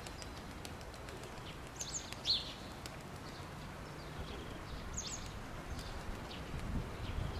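Small songbird chirping outdoors: short, high calls that sweep downward, in a cluster about two seconds in and again about five seconds in, over a faint low background rumble.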